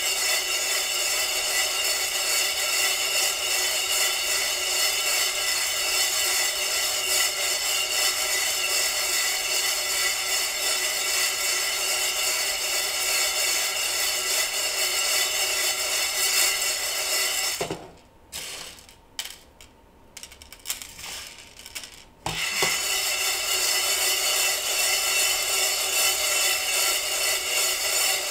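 Freshly roasted coffee beans rattling and sliding around in a metal saucepan that is kept in motion to cool them, a dense continuous rattle. It stops for about four seconds a little past the middle, with only a few faint clicks, then starts again.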